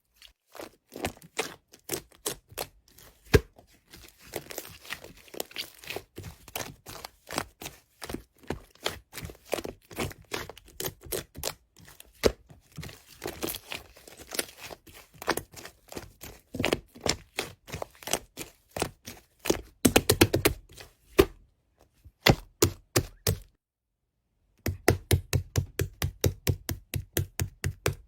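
Slime being pressed and poked by hand: a steady run of sharp, wet pops and clicks, several a second, with a fast flurry about two thirds of the way through and an even, regular run near the end.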